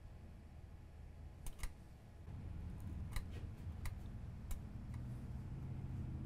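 Light, sharp clicks, about six spread over three seconds, from metal tweezers working among the pins of an LGA1151 CPU socket while bent pins are straightened. A low hum comes up underneath about two seconds in.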